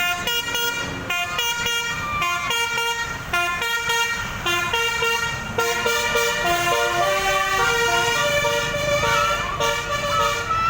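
Indonesian 'telolet' musical bus horn with roof-mounted trumpets playing a tune: short clipped notes at first, then longer held notes, stepping between several pitches. Higher wavering sounds join over it near the end.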